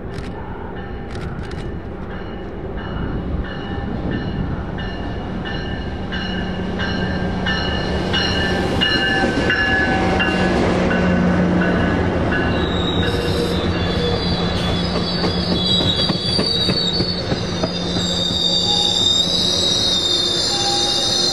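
A train rolling past on steel rails, growing louder over the first several seconds, its wheels squealing with several high-pitched steady squeals that build up in the second half over a low rumble.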